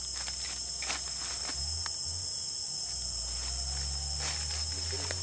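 Steady, high-pitched drone of a forest insect chorus of cicadas or crickets, with a few faint clicks.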